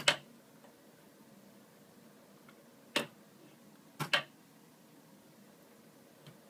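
Sharp metallic clicks and knocks, a few seconds apart, from a nitinol heat engine's rocking arm of perforated metal construction strips as it swings. One comes right at the start, one about three seconds in, a quick pair about a second later and a faint one near the end.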